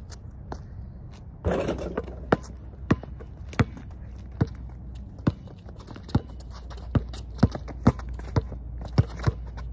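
Basketball dribbled on a concrete court: sharp separate bounces, one to two a second, coming quicker near the end, over a steady low rumble. A short noisy burst comes about one and a half seconds in.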